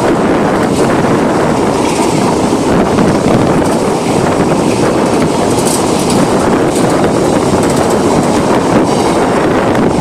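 Loaded grain hopper wagons of a freight train rolling past at close range: a loud, steady rumble with the wheels clicking and clattering on the rails. The last wagon goes by near the end and the noise begins to fall away.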